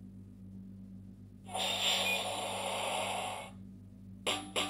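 A sound board book's small speaker playing its stopping-bus sound effect: a hiss like a bus's air brakes lasting about two seconds. Near the end a band tune with drumbeats starts from the same speaker.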